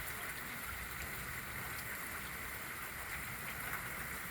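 Steady rain falling, an even hiss of water with no distinct drops or knocks standing out.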